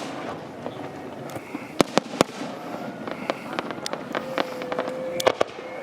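Fireworks going off: several sharp bangs, three of them in quick succession about two seconds in and another near the end, with crackling between. A steady, even tone starts about four seconds in.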